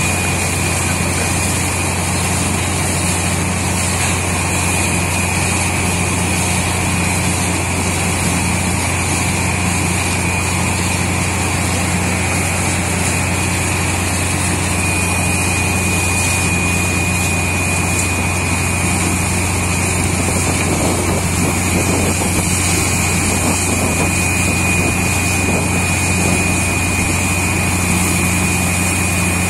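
Truck-mounted borewell drilling rig running steadily: a low engine and air-compressor drone with a thin steady whine above it, and the hiss of compressed air blowing cuttings and water up out of the borehole.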